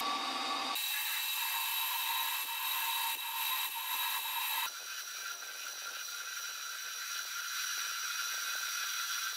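Metal lathe running with a twist drill in the tailstock boring into the end of a spinning metal bar: a steady whine of several tones. The pitch of the whine shifts about halfway through.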